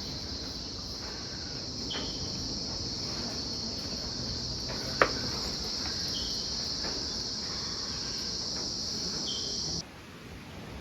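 Rainforest insect chorus: a steady, high, unbroken buzzing that cuts off suddenly near the end, with one sharp click about halfway through.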